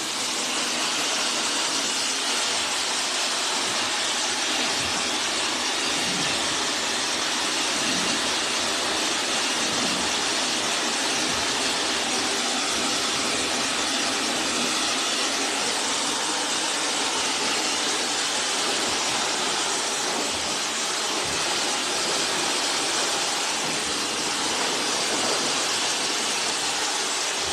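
Hand-held hair dryer blowing steadily, an even airy rush with no change in speed.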